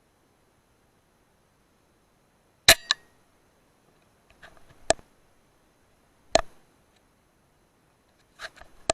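Four sharp clicks and clacks about one and a half to two and a half seconds apart, the first the loudest, with near silence between them.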